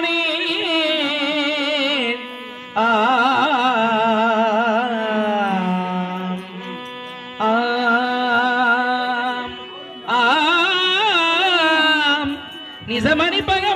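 A singer holding long phrases with heavy vibrato over a steady drone, in the style of a Carnatic-flavoured Tamil stage-drama song, with short breaks between phrases.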